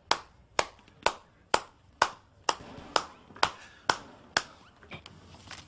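Slow, steady handclapping, sharp single claps about two a second, stopping about four and a half seconds in, followed by a few faint claps.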